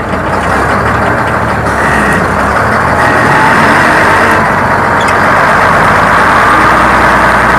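Nissan Diesel TZA520 logging truck's diesel engine running loudly and steadily, growing a little louder over the first few seconds.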